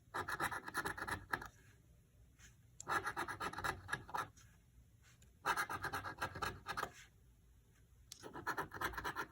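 Scratch-off lottery ticket being scratched in four short bouts of rapid scraping strokes, each about a second and a half long with short pauses between, as the latex coating is rubbed off the spots.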